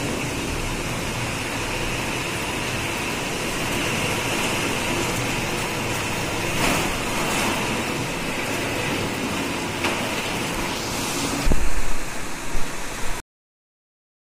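Heavy rain pouring down steadily, an even hiss. Near the end come a few loud low thumps, then the sound cuts off abruptly.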